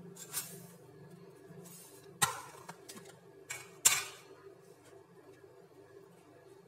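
Metal wire cooling rack clinking against the rim of an aluminium tube cake pan as it is laid over the top: two sharp clinks about two and four seconds in, the second the loudest, over a low steady hum.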